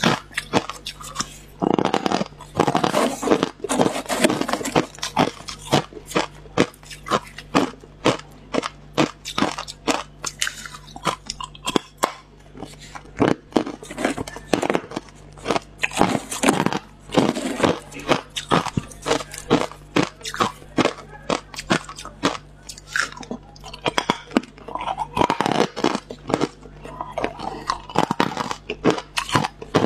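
A person biting and chewing hard clear ice chunks close to a clip-on microphone: sharp, loud crunches and cracks coming in quick, irregular runs.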